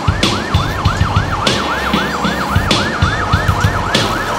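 Fast yelp emergency siren, wailing up and down about three times a second, over a drum beat with low kick hits and a cymbal-like crash roughly every second and a quarter.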